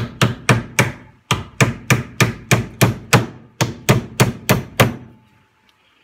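Claw hammer driving nails into an OSB beehive box: a rapid run of strikes, about three a second, with two brief pauses, stopping about five seconds in.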